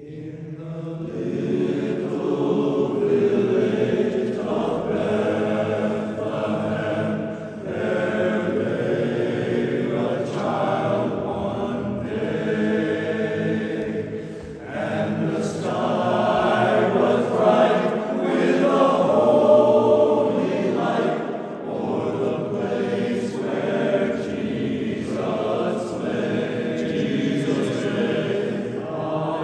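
Barbershop chorus singing a cappella in close harmony, holding long sustained chords; the singing starts just after a brief hush at the beginning.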